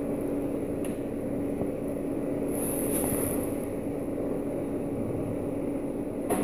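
Steady low rumble with a constant hum from a Schindler 3300 machine-room-less lift in its shaft, with a sharp click near the end.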